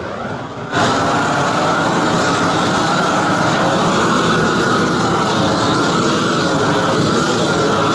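Propane roofing torch burning. Under a second in it jumps to full flame, a loud, steady rushing that holds evenly while it heats the torch-down bitumen membrane.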